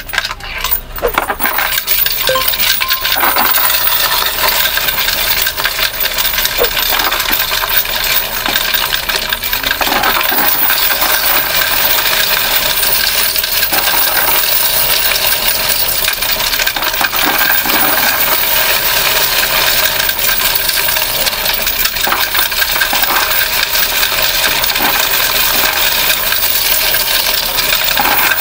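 Loose US quarters, dimes, nickels and pennies being poured by hand into a self-service coin-counting machine as it counts them. A few scattered clinks give way, about two seconds in, to a dense, steady clatter and jingle of coins.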